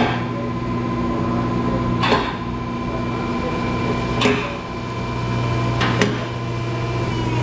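Car lift raising a car: the lift's electric pump motor runs with a steady hum, and a sharp metallic clack from the lift's safety locks comes about every two seconds, four times.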